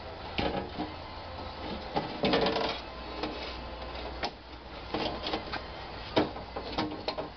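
Irregular clicks, knocks and scraping as a replacement door window glass for a 1995 Ford Escort is worked down into the door, rubbing and tapping against the door frame and window seals, over a low steady hum.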